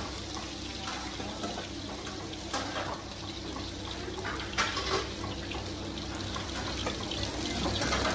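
Steady sizzle of bánh xèo frying in several woks of deep oil, with a few short knocks of metal utensils.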